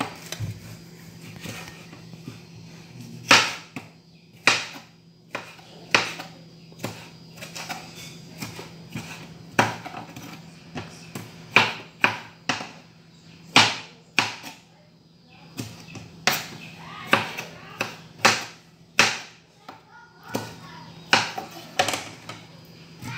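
Kitchen knife cutting tomatoes on a plastic cutting board: a series of irregular sharp knocks, roughly one a second, as the blade strikes the board.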